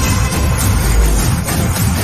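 Loud background music with heavy bass and an electronic beat.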